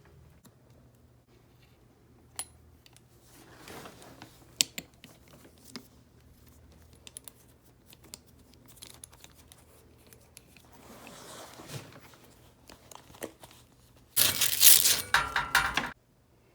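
Small clicks, taps and rustles of tools and parts being handled during shower valve work, then a loud rasping noise lasting about two seconds near the end.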